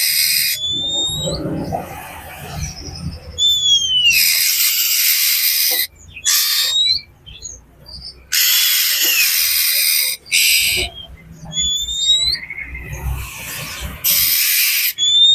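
Oriental magpie-robin (kacer) calling agitatedly: long harsh rasping calls, three in all, alternating with short whistled notes that slide in pitch. This harsh scolding is the 'ribut' (excited) call used as a lure to prompt other magpie-robins to sing.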